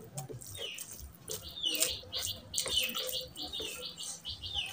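Close-miked eating sounds: a hand squishing rice and oily mutton curry on a plate, and wet chewing and lip smacking in a quick string of short, high, chirpy clicks.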